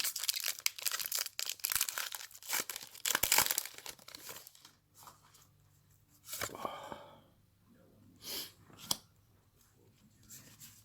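Foil booster pack wrapper crinkling and tearing open, a dense crackle for about the first four seconds, then a few softer rustles and sharp ticks.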